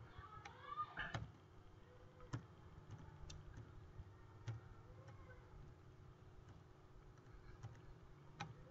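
Near silence: faint room tone with a few scattered faint clicks.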